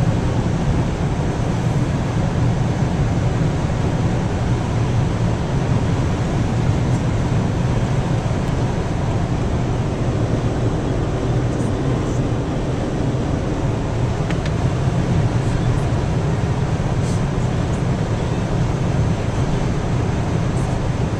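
Steady road and wind noise inside a car's cabin cruising at motorway speed, a constant low rumble from the tyres and engine with no change in pace.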